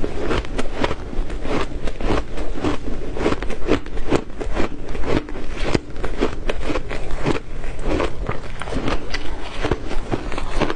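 Close-miked ice being bitten and chewed: a steady run of crisp crunches, about three or four a second.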